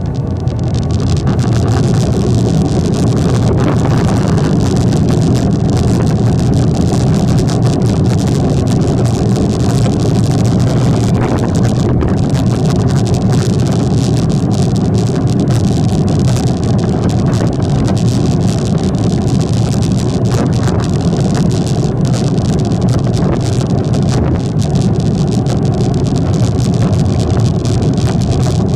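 Boeing 757 jet engines at takeoff power heard from inside the cabin: a loud, steady low rumble with a rushing hiss over it, rising in level at the start and then holding.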